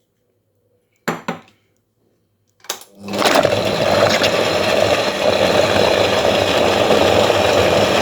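A couple of knocks, then an electric blender starts about three seconds in and runs steadily, grinding boiled dried figs and garlic in olive oil into a smooth paste.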